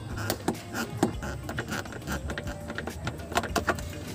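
Irregular light taps and knocks of hands on a windshield and its rubber seal as the seal is worked into the body frame, with a cord pulled round it to seat the lip.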